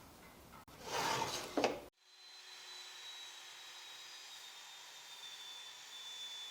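A power saw trimming the edge of a wooden strip, a scraping, hissing cut that stops abruptly about two seconds in. A steady machine hum with a high whine follows.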